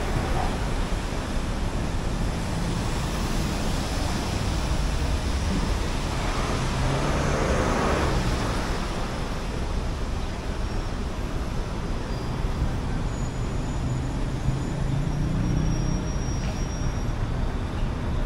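City street traffic, heard as a steady wash of tyre and engine noise on wet pavement. One vehicle passes close about seven seconds in, and a low engine rumble follows later.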